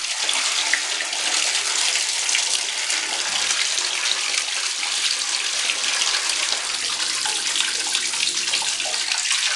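Small submersible aquarium pump running just under the surface of a bathtub, its outflow churning the water: a steady rushing, splashing noise with a faint low motor hum underneath.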